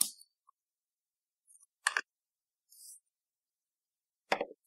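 A few small clicks and knocks of hardware being handled and set down on a tabletop: a sharp click about two seconds in and a knock near the end, with a brief soft rustle in between.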